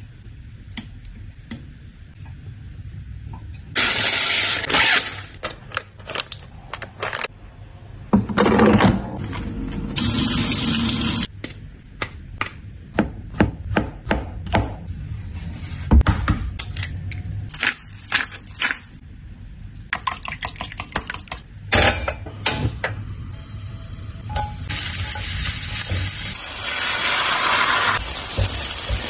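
A run of kitchen prep sounds: chopsticks stirring marinated chicken wing pieces in a glass bowl, then a knife slicing button mushrooms on a plastic cutting board in quick repeated taps. Near the end, beaten egg and mushrooms sizzle in a hot wok as they are pushed around.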